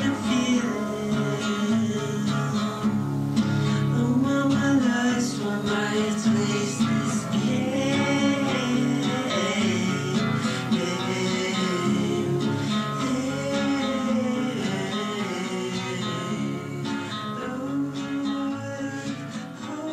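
Background music led by a plucked acoustic guitar, with a voice singing.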